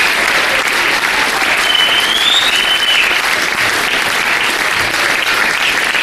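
Audience applauding steadily, with a brief high whistle rising and falling over the clapping about two seconds in.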